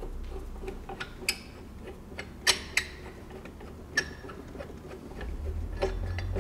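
A few separate sharp metal clicks and taps, the two loudest close together about two and a half seconds in, from hands working the fitting on top of a water welder's stainless booster tank, over a low steady hum.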